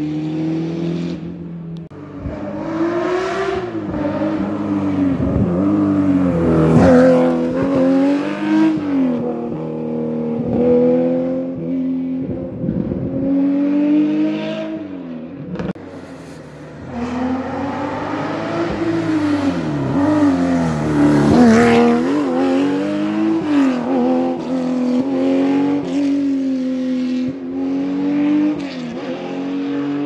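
Rally cars at full speed on a stage, engines revving hard and falling back through repeated gear changes. Two cars pass in turn, the second arriving about halfway through.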